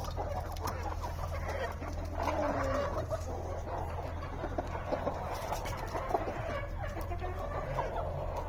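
Several domestic hens clucking continuously, many short overlapping calls, over a steady low hum.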